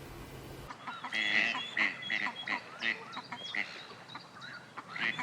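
Several waterfowl calling over and over in short calls. The calls start abruptly about a second in.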